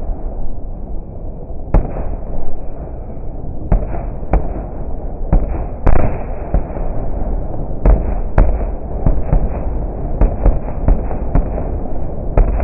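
Fireworks display: a steady rumble with many sharp bangs of shells bursting, about one a second and coming thicker in the second half. The sound is slowed about eight times along with the slow-motion picture, so it is deep and muffled, with nothing in the high range.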